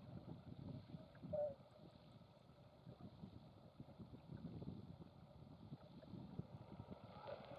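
Faint wind buffeting the microphone and water noise from a sailing boat under way, an irregular low rumble, with a brief short tone about a second and a half in.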